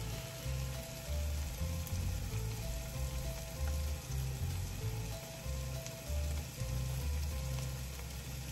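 Sausage and eggs sizzling in a frying pan, under background music with a low bass line and a few held melody notes.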